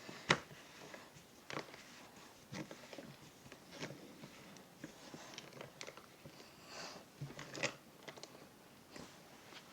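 Parts of a Henry vacuum cleaner being handled, with scattered clicks, knocks and rustles and one sharp click about a quarter second in. The vacuum motor is not running.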